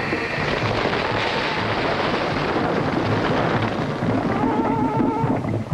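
A cartoon sound effect of steady rushing, rumbling noise. A few held musical notes come in about four and a half seconds in.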